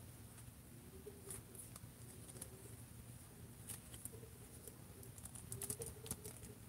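Faint clicks and light scraping of a plastic Marvel Legends action figure being handled and its joints moved, a few clicks spread out and a small cluster near the end, over a faint steady hum.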